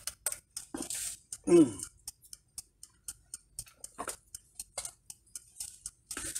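Irregular small clicks and knocks of objects being handled and shifted. About one and a half seconds in comes a short vocal grunt that falls in pitch.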